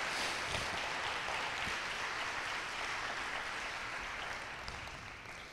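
Congregation applauding, a steady clapping that dies away near the end.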